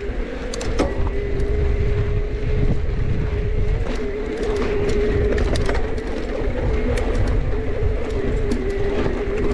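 A mountain bike rolling fast over a dirt singletrack: a steady low rumble of wind and tyres on the trail, with scattered clicks and rattles from the bike over bumps, and a steady hum running under it all.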